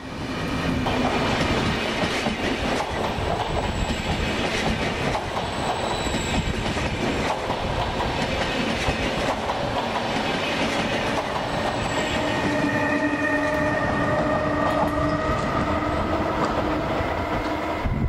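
Trenord double-deck passenger train rolling past, its wheels clattering over the rail joints with a steady rumble. About two-thirds of the way through, a steady whining tone with several pitches joins in.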